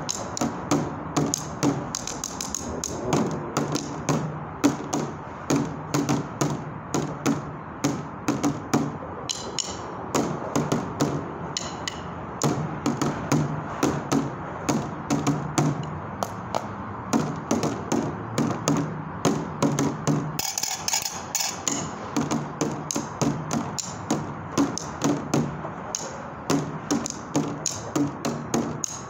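Drumsticks beating a fast, steady rhythm on an upturned white plastic container used as a drum, a hollow knocking, with a short pause about two-thirds of the way through.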